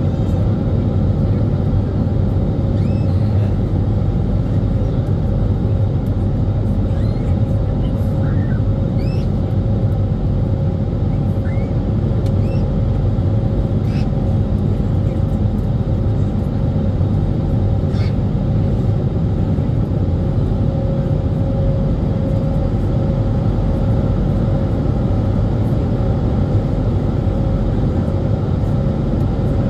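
Airbus A320neo cabin noise at an over-wing window seat during the climb after takeoff: the engines' steady deep roar, with a steady hum running through it and a few faint, short high squeaks.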